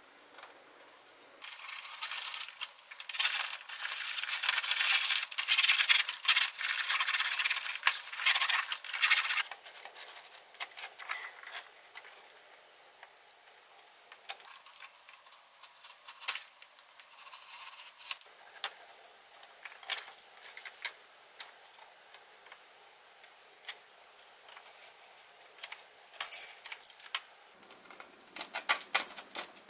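Depron foam sheet being handled and cut with a snap-off utility knife along a ruler: dense scraping and rubbing, loudest for several seconds near the start, then quieter scattered scratches and clicks.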